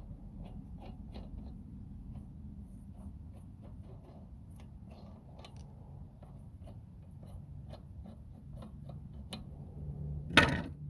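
Light, scattered clicks and taps of metal parts and tools being handled over a low steady hum, then one loud knock about ten and a half seconds in.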